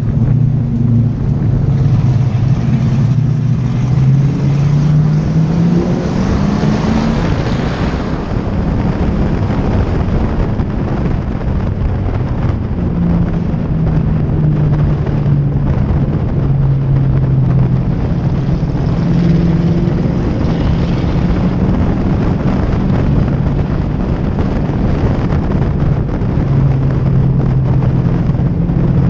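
Pure stock race car engine at racing speed, heard from a camera on its hood: the pitch climbs steadily for several seconds under acceleration, then rises and falls as the car works around the oval.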